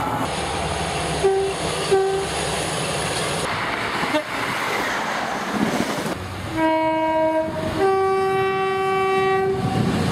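Train horn over the running noise of a train: two short toots about a second and two seconds in, then near the end a two-note blast, a short lower note followed by a longer higher one.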